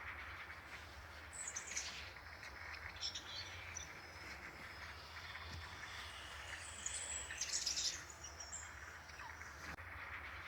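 Birds chirping: scattered high chirps and short trills, clearest about two seconds in, around three seconds, and again near seven to eight seconds, over a steady background hiss and low hum.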